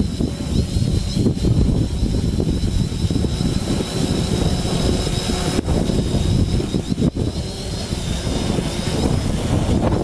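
Strong wind buffeting the microphone, with the thin, steady high whine of a small multirotor drone's motors and propellers hovering, its pitch wavering slightly.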